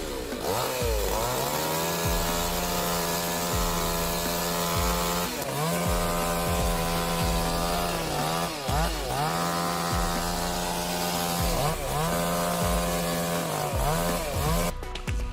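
Chainsaw running at high revs, its pitch dropping and recovering several times as it bogs under load or the throttle is eased. It cuts off abruptly near the end.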